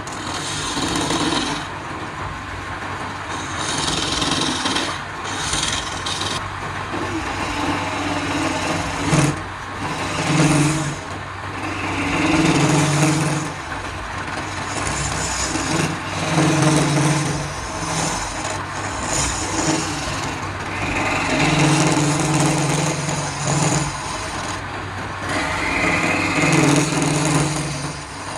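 Wood lathe running with a steady motor hum while a turning tool cuts into the spinning wood in repeated passes, each pass adding a rough scraping noise and a rise in the machine's tone.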